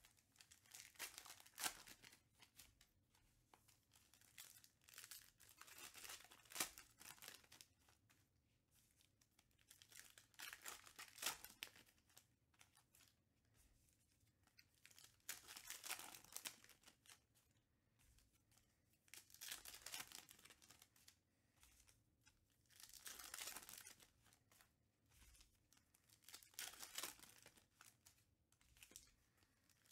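Trading cards being handled and slid onto stacks, with the crinkle of foil card-pack wrappers. The sound comes in short bursts of rustling and flicking every few seconds, with quiet between them.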